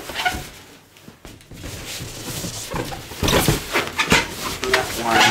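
Inflated latex balloons rubbing and squeaking against each other and against hands as a tied bunch of them is handled, with short rising squeaks near the end.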